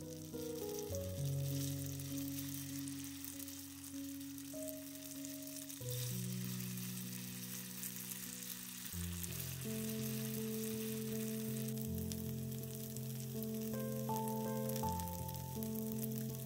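Patty of diced raw chicken breast, shredded potato and egg sizzling in oil in a cast-iron skillet: a steady sizzle with fine crackling. Soft background music with sustained chords plays along.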